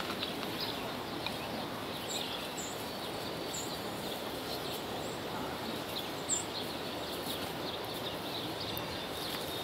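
Steady outdoor background noise, with faint high bird chirps scattered through it and a short sharp tick about six seconds in.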